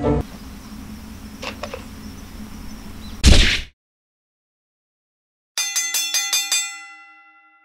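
A short, loud swish about three seconds in, then dead silence. Near the end a bell is struck rapidly about six times and rings out, a comic 'out' bell sound effect.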